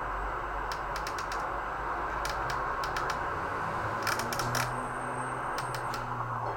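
Pearce-Simpson Super Line Mark II CB radio's speaker giving steady static hiss on lower sideband with no station coming through, the channel empty. Sharp clicks come in short quick groups throughout.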